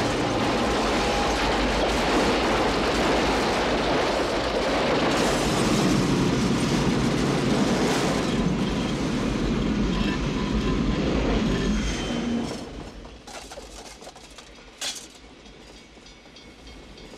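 Train rolling past on the rails, a loud, dense rumble with wheel clatter for about twelve seconds before it quickly falls away to a faint sound, with one sharp click near the end.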